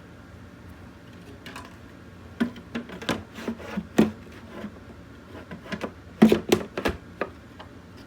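Irregular clicks and knocks of hard objects being handled, a dozen or so over about five seconds, loudest near the middle and again about six seconds in, over a faint steady hum.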